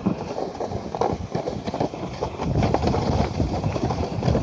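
Plastic sled sliding fast down a snowy slope: irregular knocks and scrapes as it bumps over the snow, with wind rumbling on the microphone more strongly from about halfway through.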